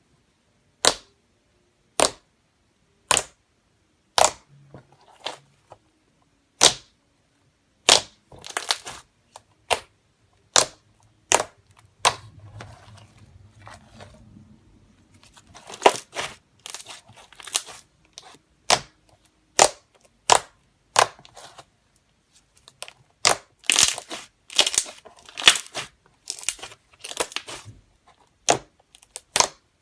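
Slime being pressed and poked, giving sharp pops and crackles as trapped air bursts: single pops about once a second at first, then quick crackling runs of them.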